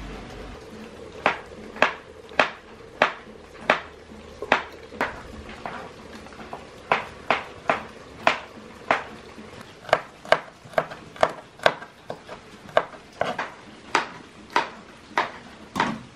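Knife chopping on a cutting board: sharp, unhurried strokes at roughly two a second, pausing briefly about five seconds in.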